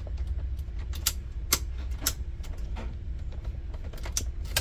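Key being worked in a freshly greased Toyota Yaris ignition lock cylinder: a handful of irregular sharp metallic clicks and the jingle of the key, over a steady low rumble.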